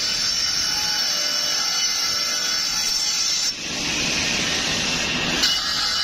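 Woodworking CNC machining centre cutting a wooden parquet panel: a steady high whine of the spinning cutter with cutting noise. About three and a half seconds in the sound turns to a coarser rushing noise for about two seconds, then the whine returns.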